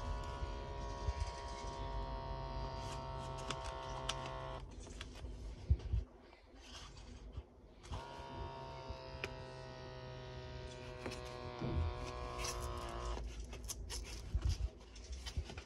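The small electric air pump of a Little Doctor LD12 wrist blood pressure monitor buzzing as it inflates the cuff, its pitch sinking slowly as the pressure builds. It stops abruptly about four and a half seconds in, then runs again from about eight seconds to about thirteen seconds. Clicks and knocks of the plastic unit being handled are heard throughout.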